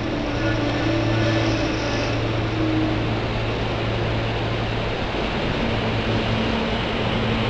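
SEPTA Silverliner V electric commuter train rolling slowly past at the platform: a steady low hum with a higher motor whine in the first few seconds and another one starting about two-thirds of the way through.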